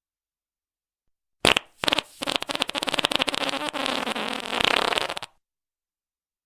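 Fart noise: a short blast about a second and a half in, then a long, rapidly sputtering fart lasting about three seconds.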